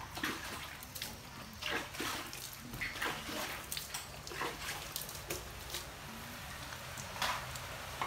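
Water splashing and dripping while a wet cat is held over a bucket and bathed by hand, with a few short cries from the cat.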